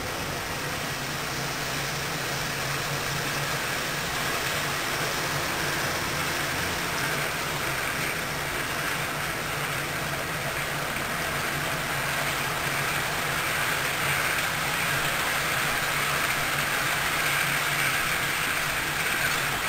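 Model freight train rolling along its track: a steady rumble of wheels on the rails over a constant motor hum, growing slightly louder toward the end.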